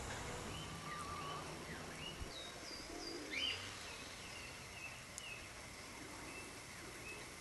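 Wild birds singing and calling: a scatter of short high chirps and whistled notes, some rising and some falling, overlapping from several birds, over a faint outdoor background hiss.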